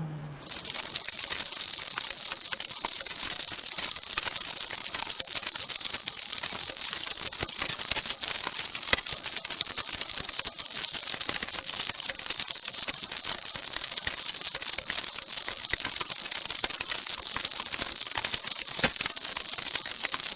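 A cluster of Korean shaman's bells (bangul) shaken rapidly and without a break, making a loud, dense jingling that starts about half a second in. The shaman rings them while calling down a spirit message (gongsu).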